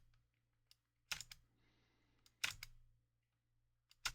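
Three short, sharp plastic clicks about a second and a half apart, each followed by a smaller click, from game cards and the console being handled while the game card slot is tested.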